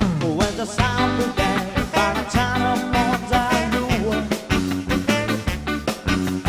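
A rock band playing live, an upbeat ska-style number with a steady drum beat, a bass line and a bending melody line over it.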